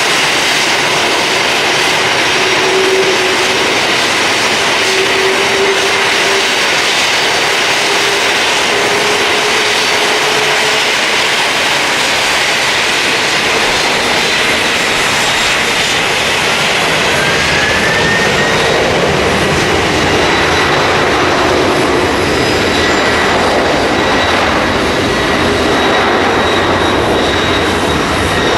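Jet engines of a Boeing 747-400D running loud, a steady roar with thin whines over it; about two-thirds of the way through one whine rises a little and the low rumble grows.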